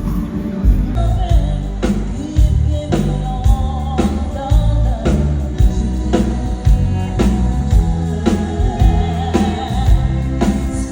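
Band music with a singer over drums and bass, the drums keeping a steady beat.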